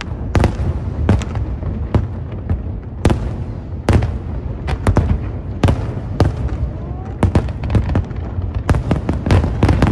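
Aerial fireworks bursting: a dense run of sharp bangs and cracks at uneven intervals, several a second at times, over a continuous low rumble of further explosions.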